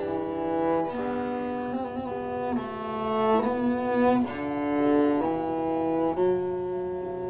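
Background music: a slow melody on bowed strings, with each note held for about a second before the next.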